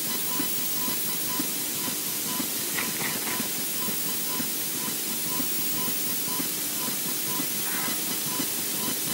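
Steady hiss of electrical interference on a nest-camera microphone, with a faint beep about twice a second and soft ticks underneath.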